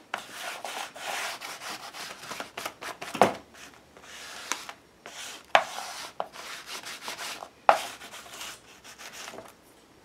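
Foam ink blending tool rubbed in repeated strokes over paper pages, a dry scratchy rubbing, with about three sharp taps along the way.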